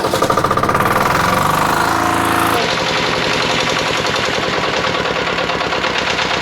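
Small air-cooled diesel generator engine running with a rapid, even diesel knock. The sound changes abruptly about two and a half seconds in, then runs steady.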